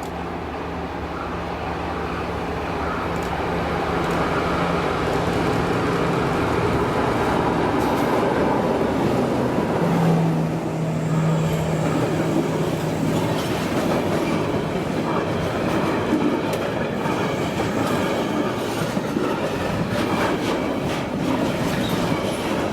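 Diesel locomotive hauling a freight train past, its engine drone growing louder over the first few seconds. The engine tone fades after about thirteen seconds, leaving the rattle and clatter of the freight wagons rolling over the rail joints.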